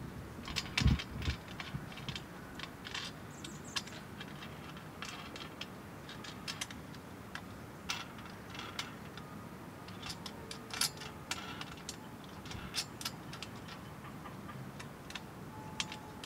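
Scattered small metallic clicks and taps from a tape measure and a metal pivot plate being handled on a solar racking rail channel, with one louder knock about a second in.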